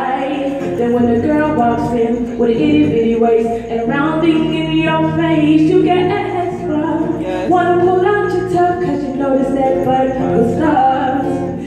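A woman singing live into a microphone, accompanying herself on a hollow-body electric guitar, both amplified through a PA.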